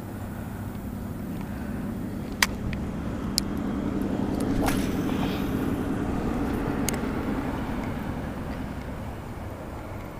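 A vehicle passing nearby, its rumble swelling over a few seconds and then fading, with a few sharp clicks from a spinning reel being handled a couple of seconds in.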